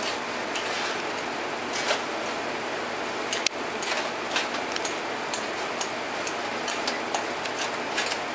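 Irregular light clicks and taps of potatoes being crushed and mixed by hand in a metal baking dish, over a steady hiss, with one sharper click a few seconds in.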